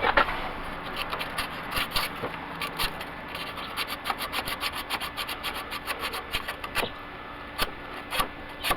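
Rapid back-and-forth rubbing strokes of a corroded battery cable terminal being scrubbed clean with abrasive, several strokes a second, with a few sharper knocks near the end.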